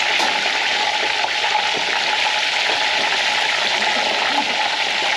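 Fish deep-frying in hot oil: a steady sizzle.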